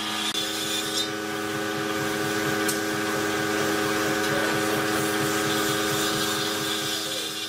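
Air spray gun hissing steadily as it sprays finish onto a wooden tabletop, over a steady mechanical hum.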